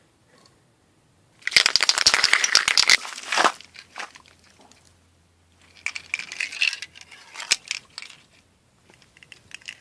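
Aerosol spray can spraying in sputtering, crackly bursts: a loud two-second burst, then a weaker one a few seconds later. The sputter is the sign of a spray head that is not spraying cleanly.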